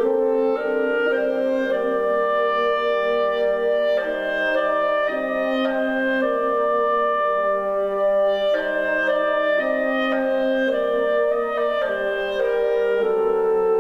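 Instrumental music for a story ballet: a melody of held notes moving smoothly from one to the next over sustained accompaniment.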